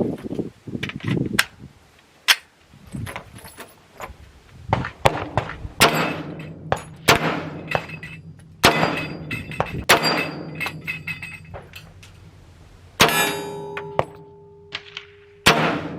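Glock 22 .40 S&W pistol firing single shots at uneven intervals, each a sharp crack with a short ringing echo. A steady two-note tone sounds for a little under two seconds near the end.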